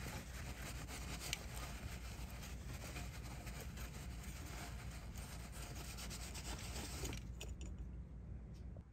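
A cloth shop rag wiping and rubbing over the engine's metal vacuum-pump mounting surface, cleaning off old oil with brake cleaner. It is a steady scratchy rubbing that stops about seven seconds in.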